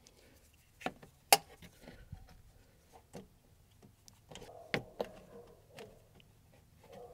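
A handful of sharp plastic clicks and knocks as a Curt Echo wireless brake controller is fitted into a car's 7-pin trailer socket. The loudest comes about a second and a half in, with a pair of clicks near the middle.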